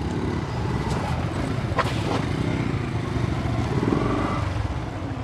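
Motorcycle engines running at low speed, with a steady low rumble, as bikes roll in and idle. A sharp click comes about two seconds in.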